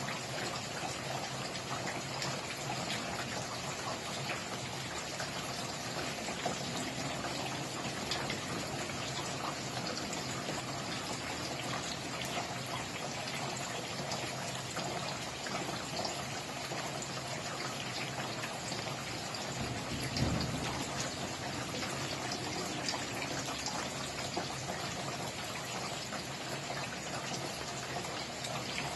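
Steady rain falling, with many individual drops ticking through the hiss. A brief low rumble comes about twenty seconds in.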